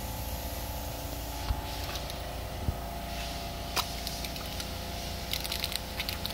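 Aerosol can of Dupli-Color vinyl and fabric spray paint being handled: scattered clicks of its mixing ball rattling, a quick run of them near the end, and two short soft hisses about one and a half and three seconds in, over a steady low hum.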